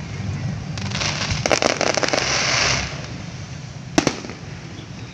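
Aerial fireworks bursting: a dense run of crackling pops from about one to three seconds in, then a single sharp bang about four seconds in.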